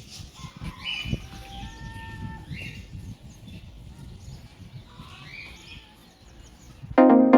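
Small birds chirping in repeated short calls over a low rumble of outdoor ambience, with a brief held pitched call about a second in. About seven seconds in, loud electronic music starts abruptly.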